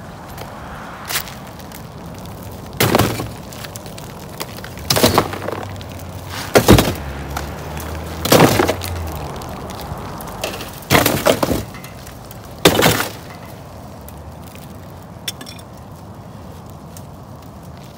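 Broken pieces of old brick and mortar clattering as they are pulled from a chimney by hand and dropped, about six loud rattling crashes over the first thirteen seconds, the first one faint.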